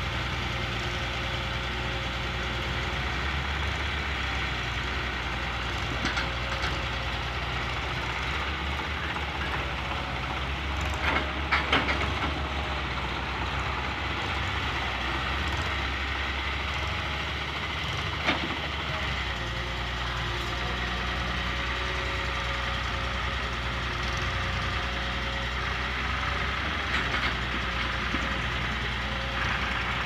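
Diesel engines of an excavator and several idling farm tractors running steadily together. A few sharp knocks come partway through, with one more a few seconds later, as the excavator works.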